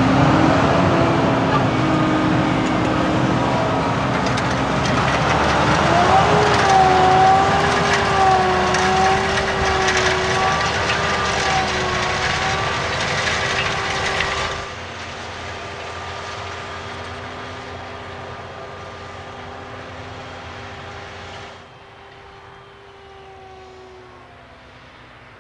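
Case IH Magnum 340 tractor's six-cylinder diesel engine running steadily under load while pulling a seed drill. The engine drone wavers slightly in pitch and drops abruptly in level twice, once past the middle and again near the end.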